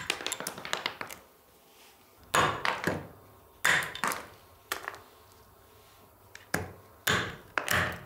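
Hammer striking stone held on a metal cutting edge set in a wooden stump, splitting it into small cubes. About a dozen sharp knocks come in irregular clusters, each with a brief ring.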